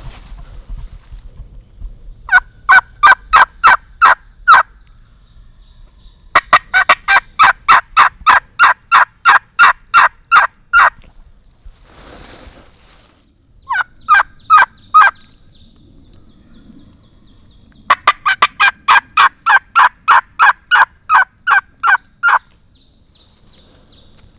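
Turkey yelping: four loud runs of rapid, evenly spaced hen yelps, about four to five notes a second, the longest lasting about four seconds.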